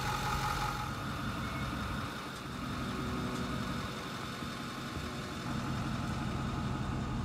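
Truck engine idling steadily with a low, even hum.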